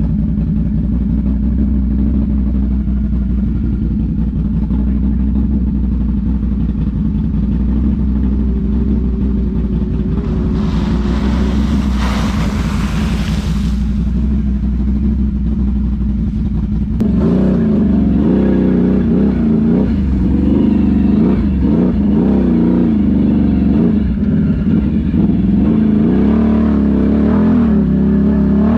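Side-by-side UTV engine running steadily while driving off-road, with a rushing noise for a few seconds near the middle. About seventeen seconds in, the engine sound changes abruptly and gets louder, rising and falling in pitch as the throttle is worked on and off.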